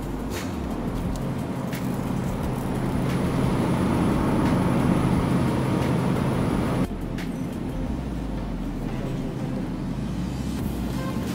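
Steady low machinery hum of a supermarket meat aisle, with a few faint clicks; it swells toward the middle and drops abruptly about seven seconds in.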